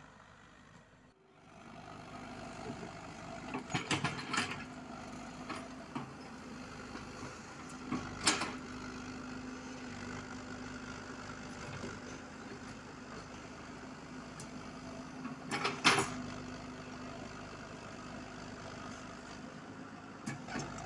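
Komatsu PC78UU mini excavator's diesel engine running steadily with a constant hum while it digs soil, with sharp clanks of the bucket and arm about 4, 8 and 16 seconds in, the last the loudest. The sound dips briefly about a second in before the engine comes up again.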